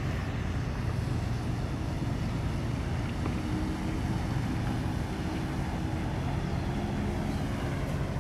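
Steady low rumble of the tanker Stolt Vision's engine as the ship passes close by under way, over an even hiss.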